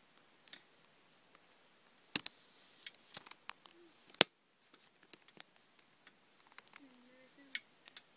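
Scattered sharp clicks and taps of a phone being handled against the glass of a small turtle tank, the two loudest about two and four seconds in, with lighter ticks in between.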